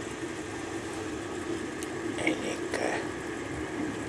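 Steady running rumble of a night express passenger train heard from inside a sleeper compartment, with a few faint clicks and rustles about two to three seconds in.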